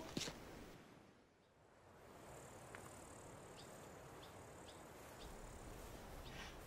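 After about a second of near silence, faint crickets chirping over a steady high hiss, with a few short, separate chirps in the middle.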